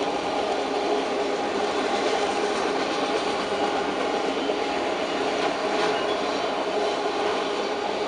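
Freight train of enclosed autorack cars rolling steadily past at close range: a continuous, even rumble and rattle of steel wheels on the rails.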